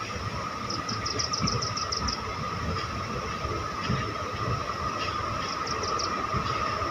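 Passenger train coach running along the rails past a station platform, heard from an open coach window: a steady rumble of wheels on track with a steady high-pitched tone above it. A quick run of light ticks comes about a second in and again shortly before the end.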